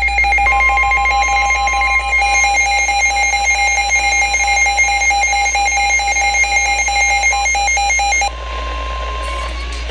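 NOAA Weather Radio alert tones announcing a severe thunderstorm warning: a loud stream of rapidly alternating electronic tones for about eight seconds, then a single steady tone for about a second.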